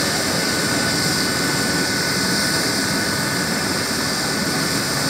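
Eurocopter EC135 twin-turbine helicopter running on the ground with its rotors turning: a steady turbine and rotor noise with a thin, high, unchanging whine.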